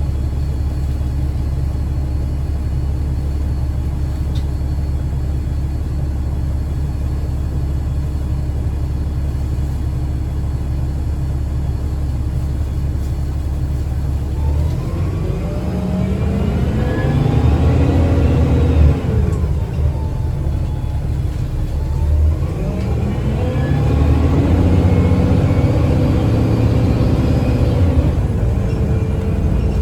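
Onboard a 2009 Gillig BRT 40' transit bus with a Voith automatic transmission: the drivetrain idles with a steady low hum, then pulls away about halfway through with a rising whine. The pitch dips briefly and then climbs again as the bus accelerates a second time.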